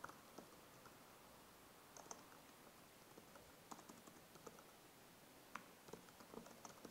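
Faint typing on a computer keyboard: scattered, irregular keystroke clicks over quiet room tone.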